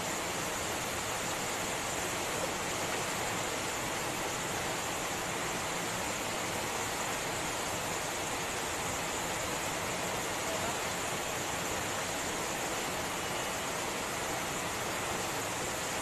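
Steady, even rush of a waterfall pouring into a rock pool.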